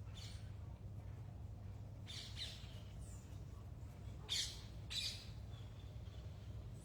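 Wild birds giving about five short calls over several seconds, the loudest two a little past the middle, over a steady low hum.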